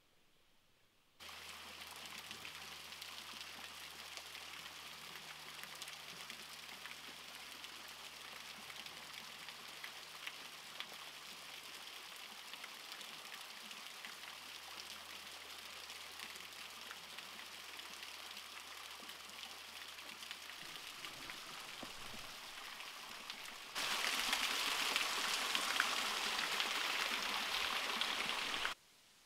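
Creek water running and splashing over rocks and stone ledges: a steady rushing hiss that starts abruptly about a second in, gets suddenly louder near the end, then cuts off.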